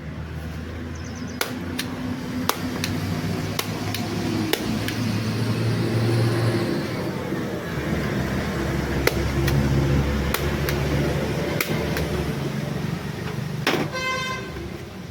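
An engine running, swelling louder twice, with sharp taps and clicks scattered throughout and a short horn toot near the end.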